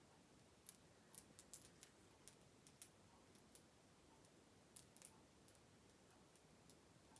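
Near silence with faint room hiss, broken by about a dozen small, sharp clicks at irregular intervals, bunched in the first few seconds and again around five seconds in.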